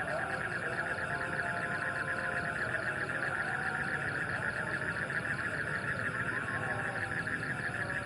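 Frogs calling in a dense night chorus: a steady, fast-pulsing trill.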